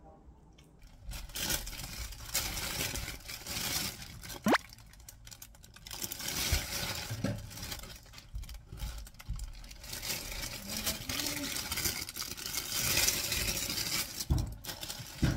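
Thin plastic produce bag crinkling and rustling as it is handled and pulled open around heads of spring cabbage, with a short rising squeak about four and a half seconds in.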